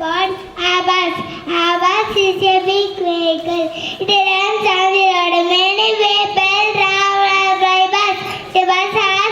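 A young child singing a song in one voice, holding long, wavering notes with short breaks between phrases.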